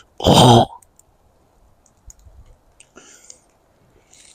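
A man's voice briefly at the start, then faint scattered clicks and a few short soft hisses.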